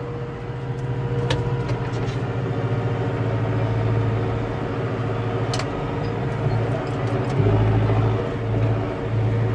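Massey Ferguson 5445 tractor's four-cylinder diesel engine running steadily under load while pulling a field roller. A deeper, louder rumble comes in near the end, with a couple of faint clicks.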